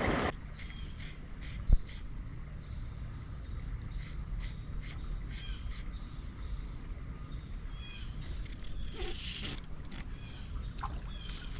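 Crickets trilling steadily in a high insect chorus, with a single sharp knock about two seconds in.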